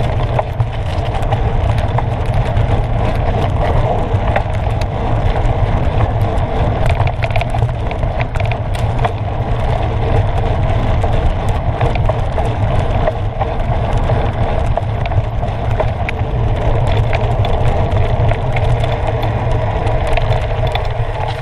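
Mountain bike ridden fast over a dirt woodland trail, heard from a camera mounted on the bike or rider: a steady rush of wind on the microphone and tyre rumble, with frequent small rattles and clicks as the bike goes over bumps.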